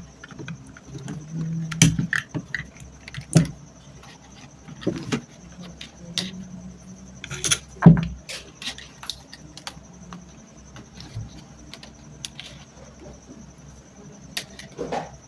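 Hands working on a stand fan's motor and wiring: irregular clicks, knocks and rattles of small metal parts, screws and tools being handled, with a faint steady high whine underneath.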